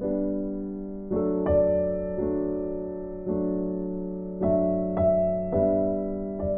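Soft background piano music: slow chords and single notes struck about once a second, each left to ring and fade.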